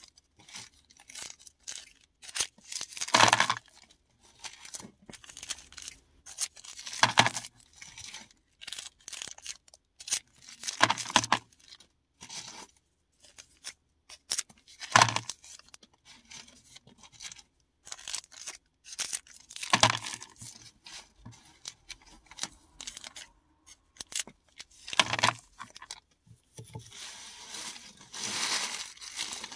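Paradichlorobenzene mothballs crushed and crumbled by hand: a loud crunch about every four seconds, with smaller crackling between and a longer stretch of crinkling near the end.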